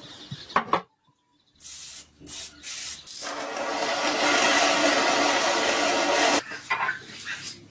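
Handheld gas torch running with a steady hiss, its flame heating a rusted threaded stud in a gun receiver to loosen it. The hiss builds about three seconds in and stops abruptly near the end, followed by a few light metal clicks.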